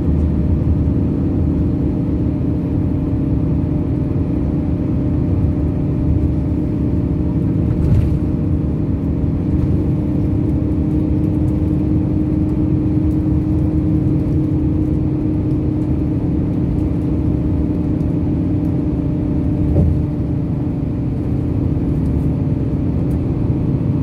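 Steady road rumble and engine drone of a vehicle at expressway speed, heard from inside the cabin, with a constant droning hum. Two brief thumps, about eight and twenty seconds in.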